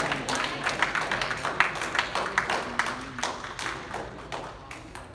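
Scattered clapping from a small crowd of spectators, dying away over a few seconds.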